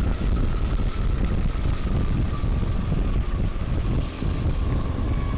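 Low, continuous rumble of wind and road noise on a helmet-camera microphone during a motor-scooter ride, with a faint steady whine that sinks slightly in pitch.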